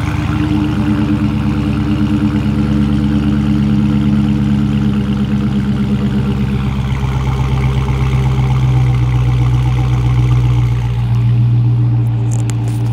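A 2016 Dodge Charger SRT Hellcat's supercharged 6.2-litre Hemi V8 idling steadily, heard at the dual rear exhaust tips.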